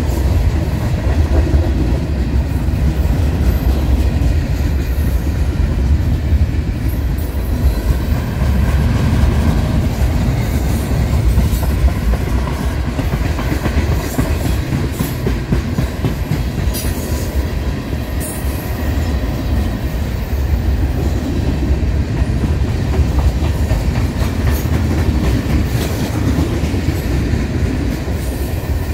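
A train's cars rolling past with a steady, heavy low rumble, broken by occasional sharp clicks from the wheels on the rails.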